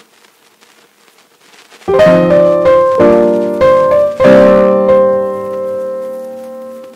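Background piano music: faint for the first two seconds, then piano chords come in loudly about two seconds in, each chord struck and left to fade.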